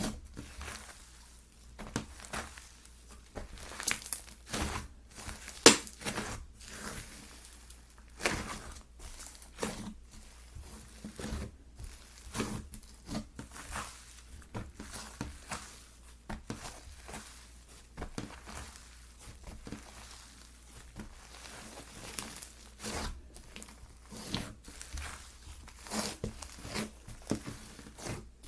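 Slime being handled and squished by hand, making irregular sticky crackles and pops, several a second.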